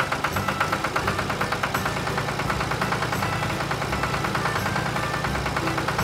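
Engine sound of an animated combine harvester: a steady, rapid chugging of about ten pulses a second.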